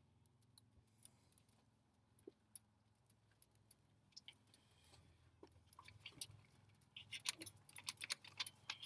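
Scattered light clicks and small jingling rattles, getting busier near the end, over a faint steady low hum.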